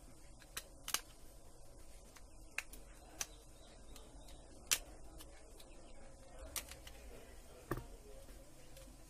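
Small sharp clicks and taps of the Nokia TA-1034 phone's plastic frame, display and board being handled with fingers and tweezers, several scattered ticks with the loudest about halfway through, over a faint low hum.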